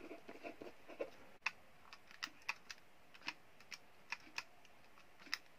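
Keys of a Casio fx-82MS scientific calculator being pressed one after another: about a dozen soft clicks at an uneven pace, keying in a multiplication.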